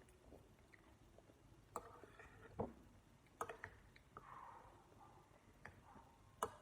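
Faint, scattered clicks and light knocks, about half a dozen, over near silence.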